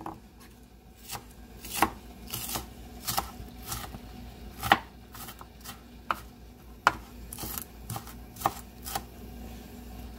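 Kitchen knife chopping onion on a wooden cutting board: irregular knocks of the blade striking the board, a few of them sharper and louder than the rest.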